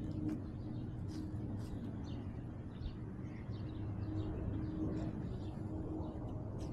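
Faint bird chirps over a steady low rustling and rumble from a collar-mounted camera as a cat moves through grass.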